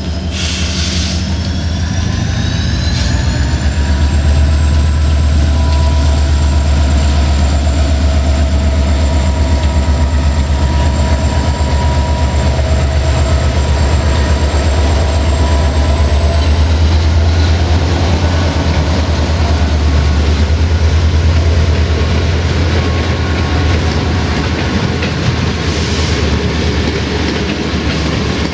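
GM-engined CFR class 65 diesel-electric locomotive pulling away with a passenger train: its engine comes up to power over the first few seconds, with a rising whine, then runs loud and steady as it passes close by. Near the end the coaches follow, their wheels clacking over the rail joints.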